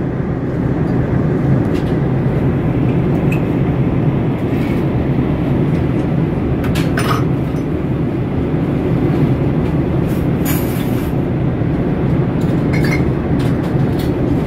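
Steady cabin noise of an Airbus A380 in flight, the engines and airflow heard from a window seat, with a few light clicks around the middle and near the end.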